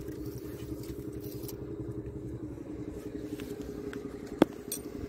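Diesel engine of a Volvo EC460BLC excavator idling steadily, with one sharp click about four seconds in.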